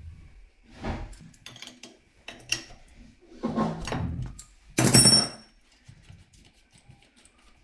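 A series of handling knocks and clatters, with a louder metallic clank about five seconds in that rings briefly.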